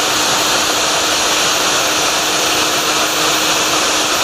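Small corded angle grinder running steadily with an abrasive stripping disc pressed against fibreglass, grinding off old silicone residue. The disc is aggressive enough to cut into the laminate underneath.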